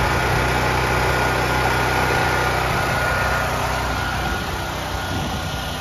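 Firman Dual Fuel portable generator's single-cylinder engine running steadily, with a thin, steady high whine over the engine note. The sound eases slightly near the end.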